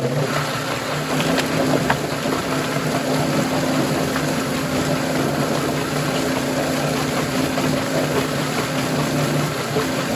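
Yardbird drum chicken plucker running: a steady motor hum under the noisy tumbling of two broiler carcasses bouncing around against the rubber plucking fingers, with a few light knocks about one and two seconds in.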